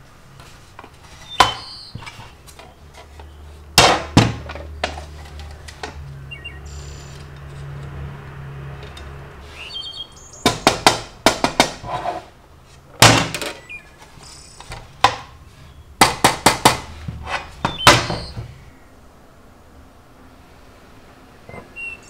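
CNC-machined aluminium keyboard case being handled on a table: sharp metallic knocks and clacks as it is set down, turned over and tapped. Single knocks come early, then quick clusters of several knocks in the second half.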